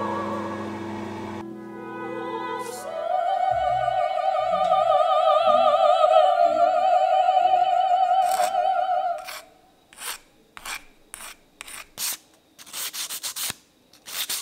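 Operatic singing with a wide vibrato in background music, which stops about nine seconds in. Then about a dozen short scraping strokes, bunched closer near the end, from a hand working a grey resin 3D-printed part against a surface.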